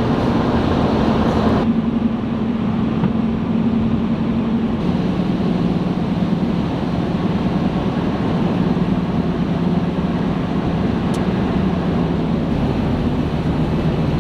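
A 1998 Mitsubishi Delica van's V6 petrol engine and road noise while driving: a steady engine hum over a constant rumble. The hum drops in pitch about five seconds in.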